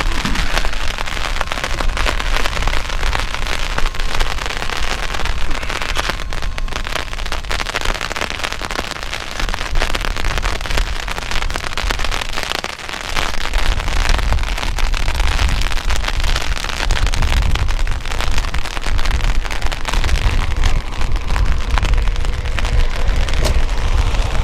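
Wind-blown rain pattering and crackling on an umbrella, with strong wind buffeting the microphone. The low wind rumble gets heavier from about halfway in.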